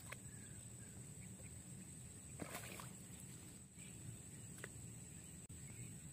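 Faint outdoor ambience: a steady low rumble with a thin, steady high-pitched whine, broken by a few light clicks, about one every two seconds.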